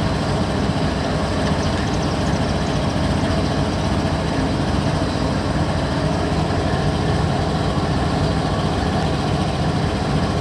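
GE ES44AC diesel-electric locomotive's engine running steadily and heavily as the locomotive creeps forward at walking pace.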